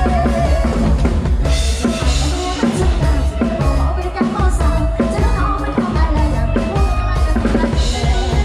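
Lam sing band music in an instrumental passage: a driving drum kit with bass drum and snare, heavy bass, and sustained keyboard tones.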